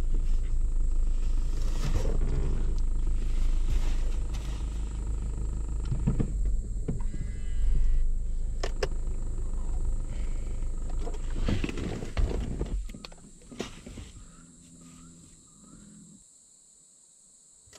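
Car engine running with a steady low rumble while the vehicle is slowly repositioned, with a few sharp clicks. The engine sound falls away about 13 seconds in, leaving near quiet.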